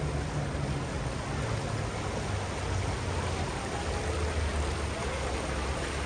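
Steady splashing and rushing of small fountain jets bubbling up in shallow stone-edged pools, with a low steady hum underneath.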